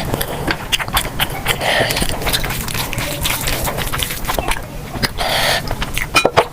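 Close-miked eating: chewing with a rapid run of sharp mouth clicks, and short noisy mouth sounds about two and five seconds in.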